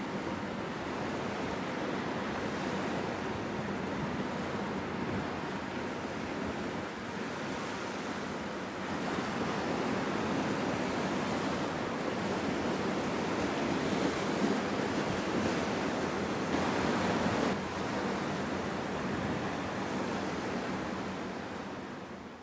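Steady rushing noise of wind and river water on the shore, a little louder from about nine seconds in and fading out at the very end.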